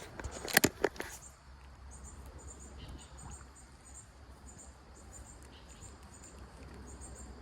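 Insects chirping in short high-pitched pulse groups that repeat steadily, over a low steady rumble. A quick cluster of sharp knocks, the loudest sounds, comes about half a second to a second in.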